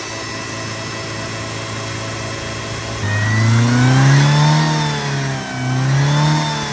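Ford Ranger pickup engine idling steadily, then revved up and back down twice in the second half. The engine is running on peanut oil in place of motor oil.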